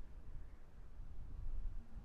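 Blizzard wind gusting: a low, uneven rumble that swells and eases.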